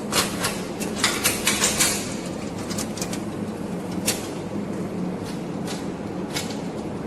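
A quick run of sharp clicks and knocks in the first two seconds, then a few scattered single clicks, over a steady low hum.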